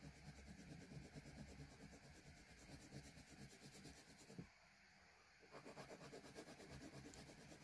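Faint scratching of a pencil shading on paper in quick short strokes, pausing briefly a little past the middle.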